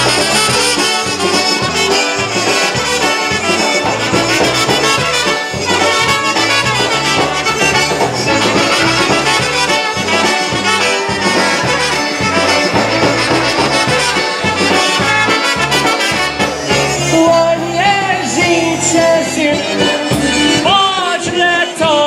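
Live polka band playing, with two trumpets leading over accordions and a steady bass and drum beat.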